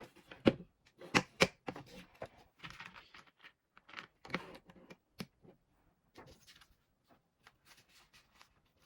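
Irregular small clicks and rustling from handling toy blocks and sticker pieces while fitting them together, sharpest in the first second and a half.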